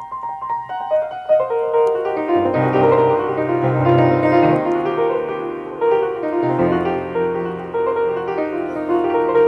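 1923 Steinway Model M grand piano, freshly restrung, being played: a run of notes stepping down from the treble, then full sustained chords with deep bass notes.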